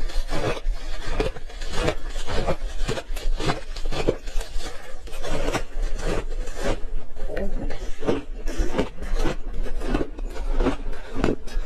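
Ice being bitten and chewed close to the microphone: a continuous run of crisp crunches, several a second.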